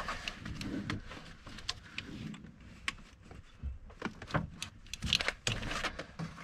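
A wrench working the belt tensioner of a 6.0 Power Stroke diesel to release the belt tension: scattered light metal clicks and knocks, with a few sharper ones between about four and five and a half seconds in.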